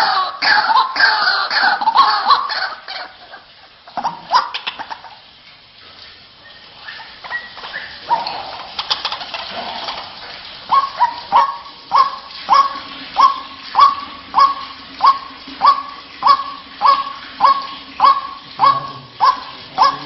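White-breasted waterhen calling. It opens with a fast run of harsh, falling notes, thins to scattered notes, then from about halfway settles into an even series of loud 'wak' notes, a little more than one a second.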